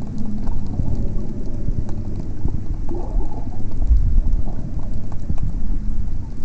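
Water noise picked up by a camera held underwater: a muffled, steady low rumble of moving water with scattered faint clicks and crackles.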